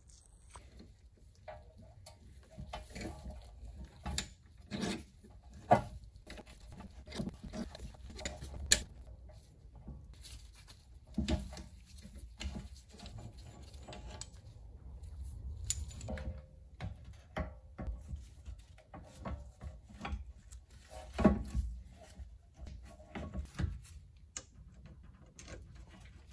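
Irregular metal clicks, knocks and scraping as a wrench turns a screw-type brake piston compressor to push back a rear brake caliper piston. The loudest knocks fall about six, nine and twenty-one seconds in.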